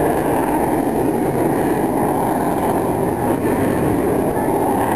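Avro Vulcan bomber's four Olympus jet engines heard from afar as a steady, loud rumbling roar.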